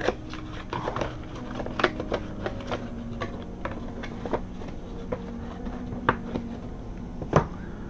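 Cardboard packaging being handled and closed up: scattered taps, scrapes and knocks of cardboard, with the sharpest knock near the end, over a steady low hum.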